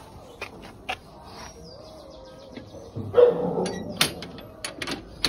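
A dog whining in a wavering tone, then giving a louder yelp about three seconds in, between sharp metal clicks from a steel grille gate being handled.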